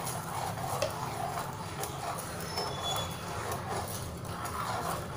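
A whisk stirring a watery tea and agar mixture in a metal saucepan, its wires scraping and ticking against the pan with a repeated swishing rhythm.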